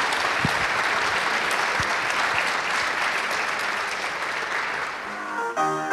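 Audience applauding, the clapping thinning out near the end as keyboard music starts in the last half second.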